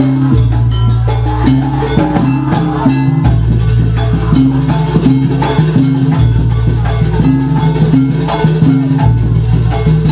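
Loud live jaranan music: a percussion ensemble with fast, frequent drum and rattle strokes over a repeating melodic figure and long held low notes.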